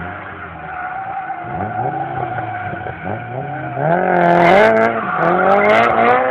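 Drift car engine revving up in several rising surges while its tyres squeal through a smoky slide. It gets louder about four seconds in.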